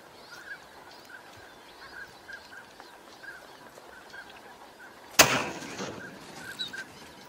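Short duck calls repeating over and over, then a single shotgun shot a little after five seconds in, fading away over about a second.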